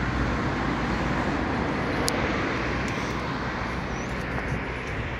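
Steady hum of road traffic, easing off slightly toward the end.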